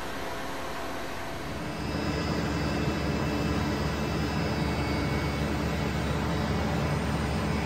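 Steady hum and hiss of machine-shop equipment running, which steps up louder with a heavier low rumble about two seconds in and then holds steady.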